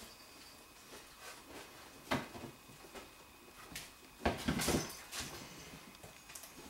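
Golden retriever puppies scrambling over wooden and plastic play equipment: scattered knocks and scuffs, with a single knock about two seconds in and a louder cluster of thumps a little past four seconds.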